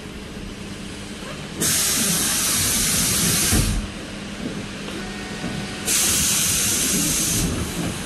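Two loud bursts of compressed-air hiss from a city bus's pneumatic system, each starting and stopping abruptly: the first about a second and a half in, lasting two seconds and ending with a low thump, the second about six seconds in. Under them the bus engine hums steadily.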